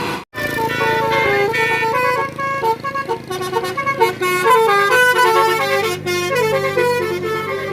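A tour bus's 'telolet basuri' multi-tone musical horn playing a tune of quick stepped notes over a low steady hum. It starts just after a brief cut-out near the beginning.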